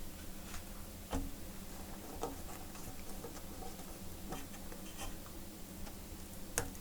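Scattered light clicks and taps of a laptop's display cable and panel being handled and plugged back into the mainboard connector, with a sharper click about a second in and another near the end, over a faint steady hum.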